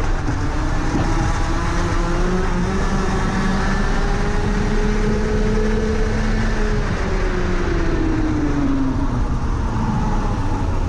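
Rotax Max Senior 125cc two-stroke single-cylinder kart engine heard onboard at full throttle, its pitch climbing along the straight. About seven seconds in the revs fall away as the kart slows for the next corner.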